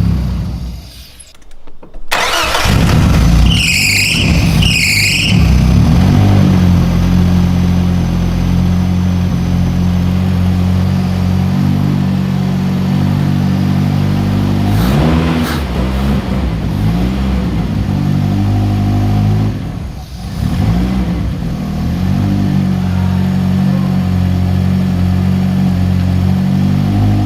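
Nissan S13's newly fitted turbocharged engine running through its new exhaust on its first start after a rebuild. It idles steadily, is revved twice a few seconds in and blipped a few more times about halfway, with a brief dip about 20 seconds in.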